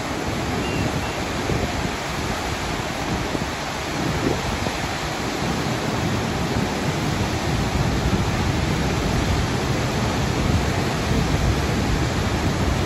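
Waterfall plunging into a rocky pool: a steady, full rushing roar of falling water, strongest in the low end.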